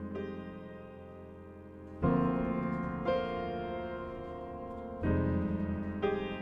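Piano playing slow, sustained chords. New chords are struck about two, three, five and six seconds in, each fading slowly before the next.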